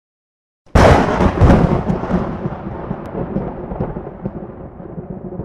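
Thunderclap sound effect: a sudden crack a little under a second in, a second crack soon after, then a rolling rumble that fades away over several seconds.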